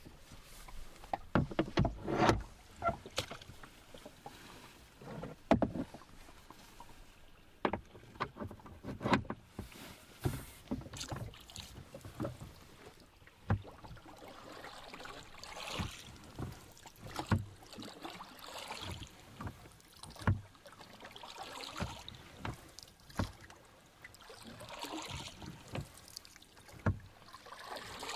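Rowboat being rowed on calm water: wooden knocks and clunks from the oars, and water swishing and splashing with each stroke, the swells coming every couple of seconds.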